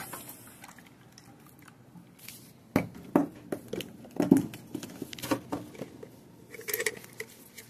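Kitchen handling noises: a few scattered clicks and knocks of containers and utensils being moved about, the loudest about three seconds in, over quiet room tone.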